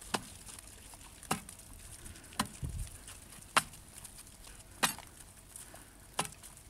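Breaker bar jabbed down into pond ice, six sharp strikes a little over a second apart, chipping a hole through the frozen surface.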